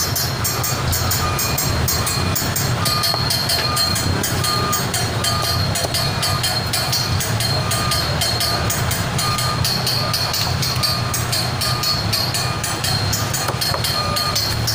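Busy market background noise: a loud, steady low rumble with faint rapid clicking over it, and a faint short tone repeating about once a second.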